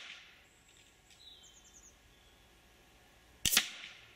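FX Impact PCP air rifle firing .177 pellets: one sharp shot about three and a half seconds in, with the fading tail of the previous shot at the start. A bird chirps faintly in between.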